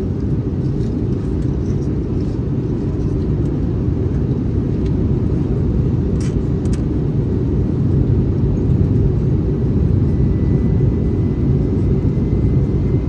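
Steady cabin noise inside an Airbus A321neo in flight: a low, even rumble of engines and airflow, with a couple of faint clicks about six seconds in.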